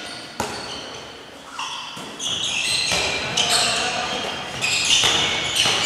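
A handball thuds on a sports-hall floor a few times, with short high-pitched squeaks and players' calls, all echoing in the large hall.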